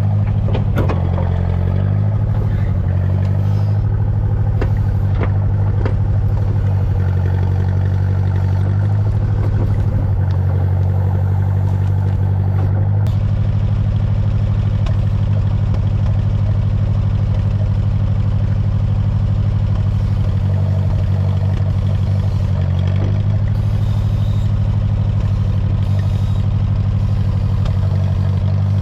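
International Harvester tractor-loader-backhoe engine running steadily while the backhoe digs, its note shifting a couple of times, with scattered clanks from the bucket and linkage.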